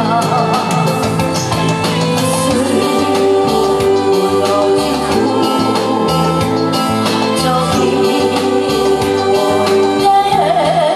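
A woman sings through a microphone over amplified accompaniment with a steady beat. Near the end she holds a note with vibrato.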